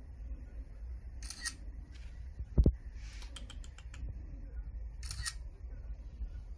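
Camera shutter clicks: a single shutter sound about a second in, a quick burst of several clicks around three to four seconds in, and another single shutter sound about five seconds in. A short low thump, the loudest sound, comes about two and a half seconds in.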